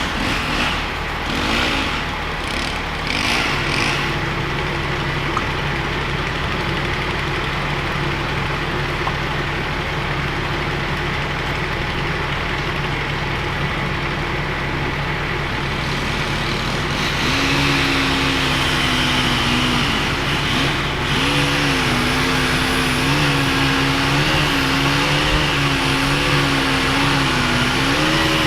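Steady rain-and-wind noise with a motor vehicle's engine running. About halfway through, a low droning tone comes in, its pitch wavering slowly up and down.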